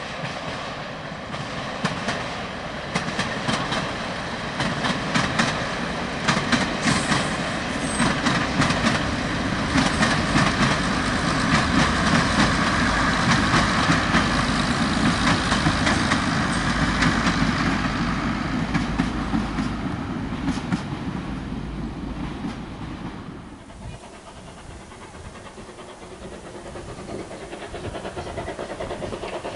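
A heritage diesel multiple unit passes by on the line: its engines run and its wheels click rapidly over the rail joints. The sound swells to its loudest in the middle and then fades as the train goes away. After a cut a little over 20 seconds in, only quieter outdoor background remains.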